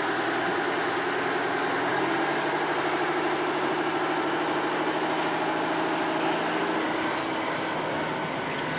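A large engine running steadily at a constant speed, with an even hum.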